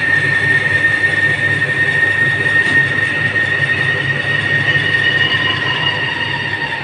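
Workshop machinery running with a loud, steady high-pitched whine over a low rumbling hum. A second, lower tone slides slowly down in pitch in the last few seconds.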